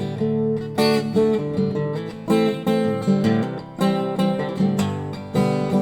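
Acoustic guitar strumming chords in an instrumental passage of a song, with a steady rhythm and no singing.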